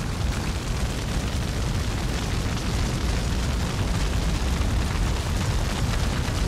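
Large wildfire burning: a steady low rumble with dense crackling throughout.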